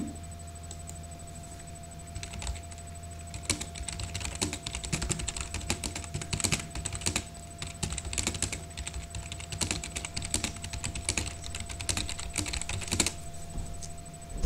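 Typing on a computer keyboard: quick runs of keystroke clicks that start about two seconds in and stop about a second and a half before the end.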